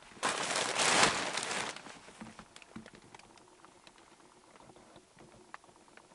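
A burst of rustling and crinkling lasting about a second and a half, then faint scattered ticks and taps, typical of someone handling things and moving through a cluttered room.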